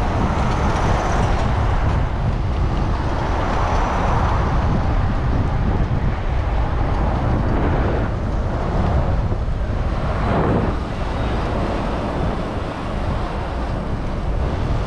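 Rushing wind on the camera and road and traffic noise as an electric bike rides through city streets among cars. The low rumble is steady, with a hiss that swells and fades a few times, loudest about ten seconds in.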